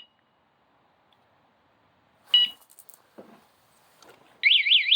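Bike alarm/light unit armed in lock mode: it gives a single short warning beep when disturbed, then about four seconds in bursts into a loud, fast warbling alarm siren. This is the alarm going off after the bike is touched a second time.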